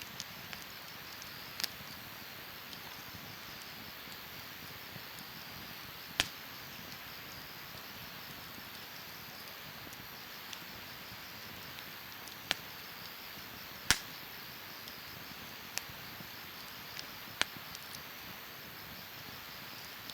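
Wood fire burning in a fire pit: a steady soft hiss with several sharp crackles and pops, the loudest about six and fourteen seconds in.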